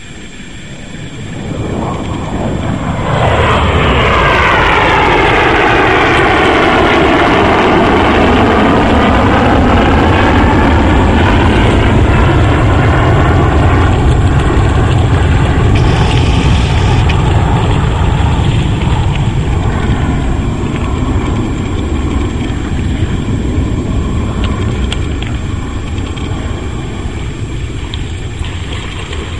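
Aircraft engine passing overhead. The sound swells over the first few seconds, sweeps down in pitch and then holds with a deep rumble, fading slowly toward the end.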